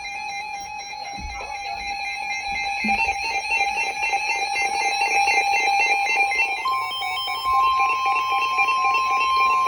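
Weather radio alert tones: a warbling electronic alarm that flips rapidly between pitches and grows louder, joined about seven seconds in by a steady higher tone, as sounds ahead of a new warning.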